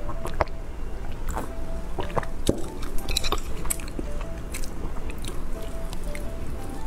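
Close-miked eating sounds: a sip from a cup, then chewing a mouthful of noodles with many short wet mouth clicks and smacks. Quiet background music runs underneath.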